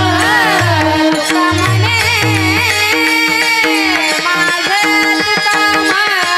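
A woman singing a Marathi devotional kirtan melody in long, gliding phrases. She is accompanied by pakhawaj drum strokes, small hand cymbals and a steady drone.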